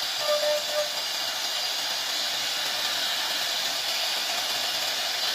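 CNC router cutting a 2D pattern in wood: a steady high hiss of the spindle and bit, with a thin high whine over it.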